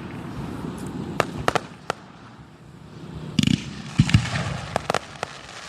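Aerial fireworks shells bursting in a string of sharp bangs, with crackling, and a short lull about halfway through.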